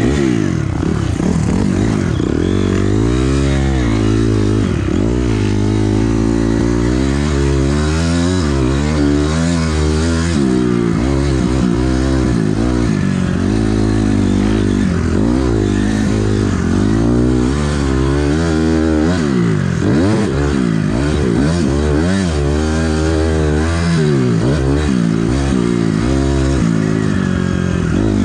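A 2006 Honda CRF250R's four-stroke single-cylinder engine, heard from on the bike while it is ridden hard around a motocross track. The pitch revs up and falls away over and over as the throttle opens and closes, with a few stretches held steady at high revs.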